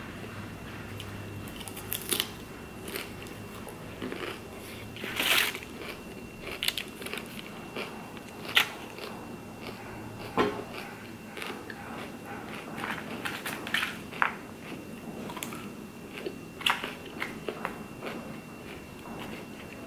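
Close-miked chewing and crunching of food, with crisp salad greens and chicken eaten off a metal fork, plus now and then a sharp click of the fork against the tray. The crunches come irregularly, a burst every second or two, the loudest about five seconds in.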